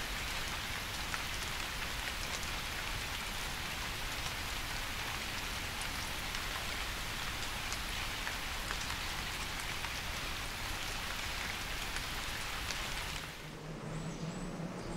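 Steady rain falling, an even hiss flecked with the patter of single drops. About thirteen seconds in it gives way to a quieter outdoor background with a low steady tone.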